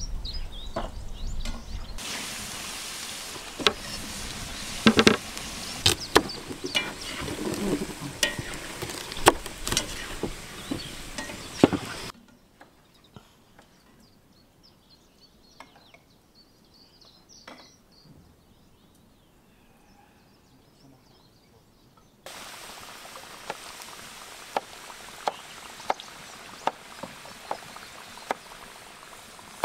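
Food preparation at an outdoor table: loud clatter and knocks, then a knife cutting potatoes with regular sharp clicks about once a second in the last part. Birds chirp faintly during a quieter stretch in the middle.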